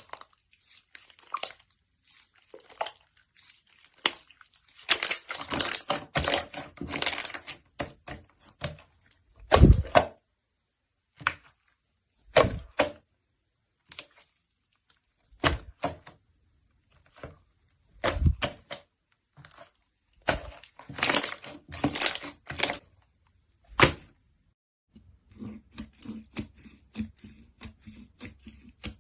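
Slime being played with by hand: bursts of crackling and popping separated by short silences, with a few dull thumps as it is pressed or slapped down. Near the end a low steady hum comes in under softer crackling.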